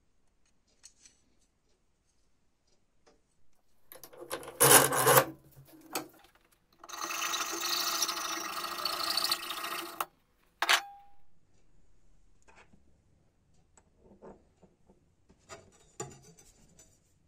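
A hacksaw cutting through a brass rod clamped in a vise: about three seconds of steady rasping with a metallic ring, after a loud, short rasp about four seconds in. A brief metallic ring follows the cut, and near the end come light clicks of steel on brass.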